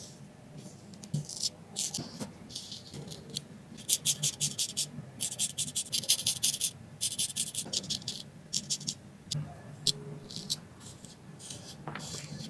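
Straight razor scraping across facial stubble in a series of short strokes, each a fine crackling scrape lasting about half a second to a second and a half.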